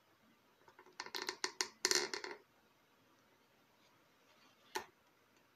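Thumb-pump oil can being worked to force oil through a motorcycle oil feed pipe and bleed it: a quick run of sharp clicks and crackles about a second in, then a single click near the end.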